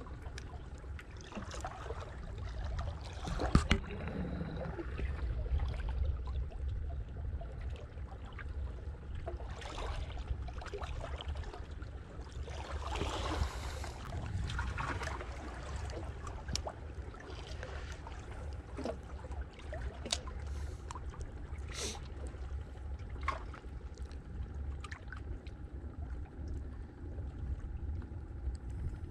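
Water sloshing and lapping over a steady low rumble, with scattered small clicks and knocks; a sharper knock comes about three and a half seconds in.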